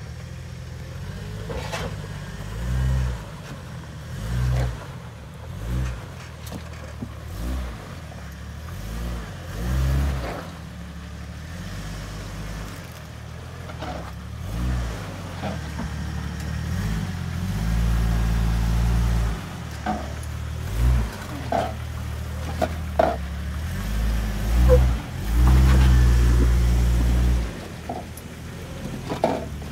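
Jeep Wrangler TJ's 4.0-litre straight-six engine working at low speed over boulders, swelling and falling back again and again with throttle blips, with its longest pulls near the middle and near the end. A few sharp knocks come in the second half.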